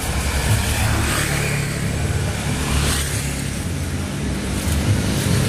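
Motorcycle engine running steadily under way, a low hum with a continuous hiss of road noise over it.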